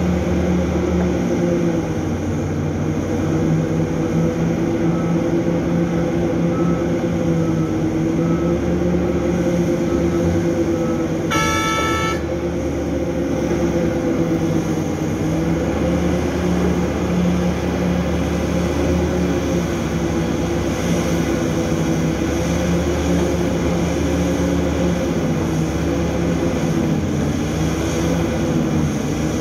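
Big diesel engines of a Hitachi EX3600 mining excavator and a haul truck running steadily, the engine note wavering up and down as the excavator works. Faint backup-alarm beeps sound about twice a second for several seconds, then a horn gives one short toot just before the middle.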